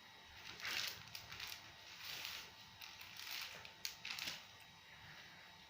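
A person breathing out in several short, breathy puffs right after a deliberate cough, with faint clicks and rustles in between. The puffs die away about four and a half seconds in.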